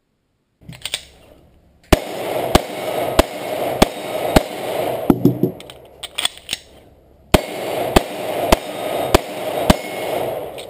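Semi-automatic pistol fired in two strings of five shots, about two shots a second. Between the strings come lighter metallic clicks of the gun being handled.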